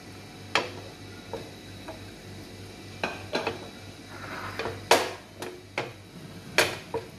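Kitchen dishes and utensils clinking and knocking: about ten sharp, irregular hits, the loudest about five seconds in, over a steady low hum.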